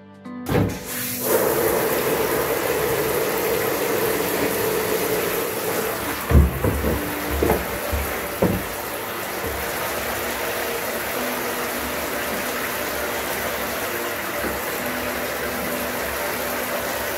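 Water running from a tap into a plastic baby bathtub, a steady rushing pour that starts half a second in. A few dull knocks come midway as the plastic bath seat is moved about in the tub.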